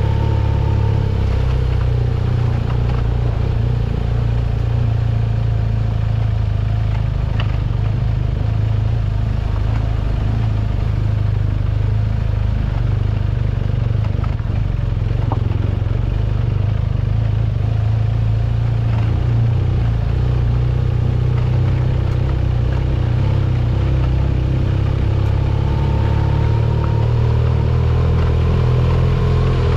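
Vehicle engine running steadily under load on a mountain-pass climb, with a few light clicks and knocks. The engine note rises slightly near the end.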